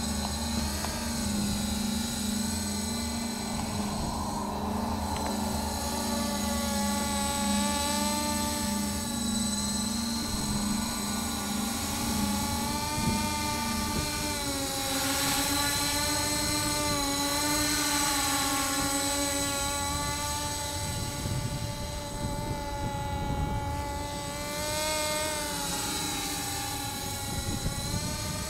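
Scarab Avatar tricopter's electric motors and propellers buzzing in flight, several tones rising and falling together as the throttle changes. A steady lower hum drops away about halfway through.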